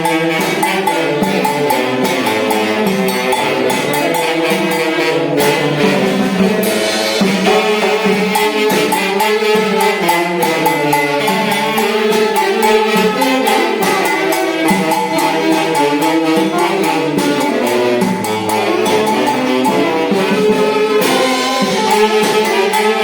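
Tunantada, the Peruvian folk dance music, played by a band orchestra: a melody carried by wind instruments over a steady percussion beat.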